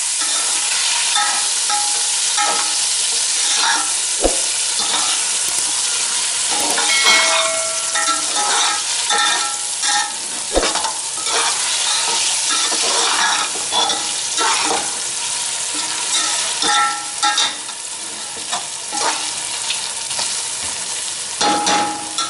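Mutton pieces frying in hot oil in an aluminium pot (the bhuna stage, browning the meat with onions and spices), stirred and scraped with a metal spoon. A steady sizzle runs under repeated scrapes and ringing clinks of metal on the pot, with two sharper knocks.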